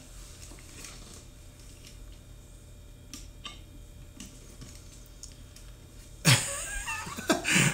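Quiet indoor room tone with a steady low hum and a few faint clicks, then a sudden loud knock about six seconds in, followed by a brief wordless vocal sound.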